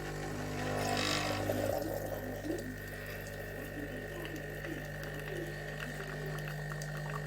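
Tassimo pod coffee machine brewing: its water pump hums steadily while hot water gurgles through, with a louder hissing spell about a second in.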